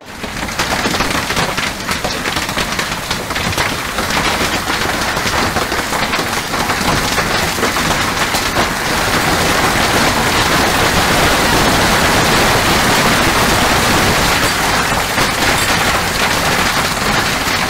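Heavy downpour of rain pelting a surface: a dense, steady hiss of countless drop impacts with a fine crackle, growing slightly louder about halfway through.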